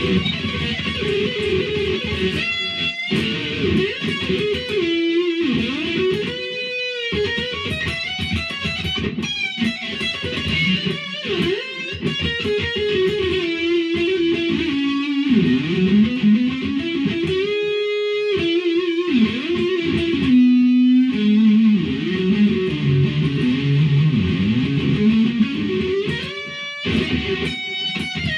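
Electric guitar with its original EMG 81/85 active pickups, played through an amp: a continuous run of riffs and single-note lines with quick note changes, slides and a few short stops.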